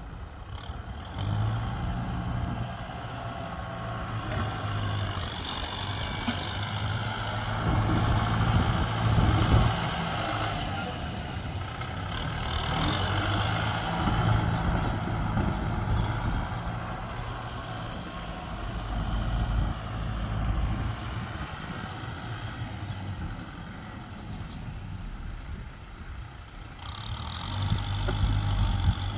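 Heavy diesel engines of a tractor and trucks working in mud, running and labouring under load, their level swelling and easing several times.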